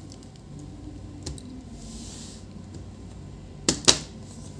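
Plastic laptop parts being handled while the display is taken off: a soft rub about two seconds in, then two sharp clicks in quick succession near the end, the loudest sounds, over a steady low hum.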